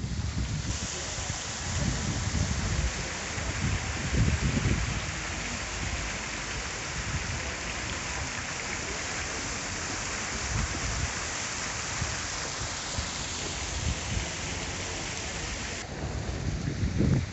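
Steady outdoor hiss of falling water, with wind now and then rumbling on the microphone. The hiss comes in sharply just after the start and cuts off about a second and a half before the end.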